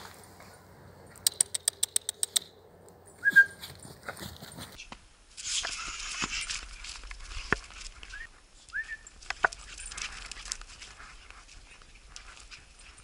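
Boxer dog playing in snow, giving three short high whimpers and snuffling with its nose pushed into the snow. A quick run of about ten clicks about a second in.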